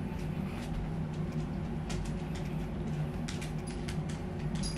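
Electric fan running steadily with a low motor hum, with scattered light clicks and rustles of clothing being handled.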